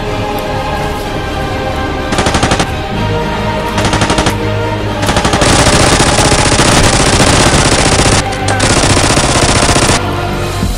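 Rapid automatic machine-gun fire sound effects over background music. There are two short bursts, about two and four seconds in, then a long burst from about five seconds to near the end with a brief break.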